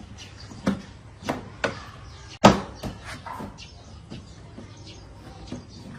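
A few sharp knocks, the loudest about two and a half seconds in.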